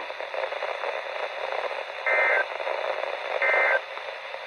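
Weather radio broadcast hiss, with two short buzzy digital data bursts about 2 and 3.4 seconds in. These are the EAS/SAME end-of-message tones that close the flash flood warning.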